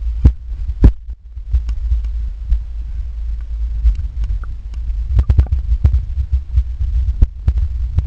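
Water noise picked up by a submerged camera: a steady low rumble with irregular sharp clicks and knocks, which bunch together about five seconds in.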